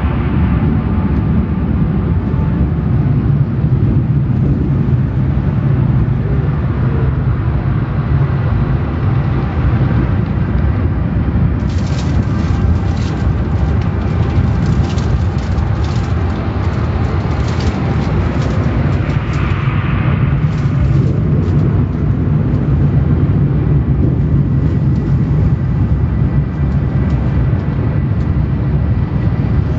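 Car wash machinery running with a steady loud rumble. From about 12 to 20 seconds in, a spell of rapid crackling ticks sounds over it.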